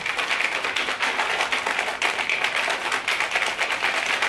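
A plastic shaker cup with a drink mix inside being shaken hard and fast, the liquid sloshing and rattling without a break.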